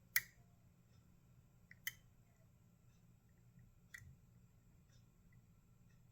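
Small clicks of a disk detainer pick turning the discs inside a Parkside disk detainer lock. There are three sharp clicks about two seconds apart, the first the loudest, with fainter ticks between.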